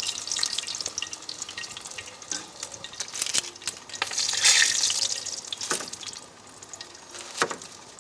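Hot corn oil sizzling and crackling in a pan with a rosemary sprig and ginger frying in it, the sizzle swelling louder for a moment about halfway through.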